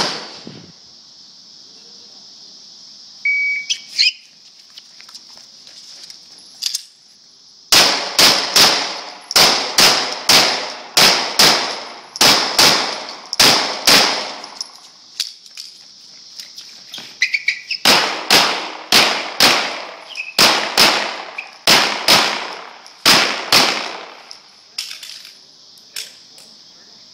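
Semi-automatic handgun fired in two long strings of rapid shots, about two to three a second, each shot sharp with a short ringing tail. A steady high buzz of insects runs underneath.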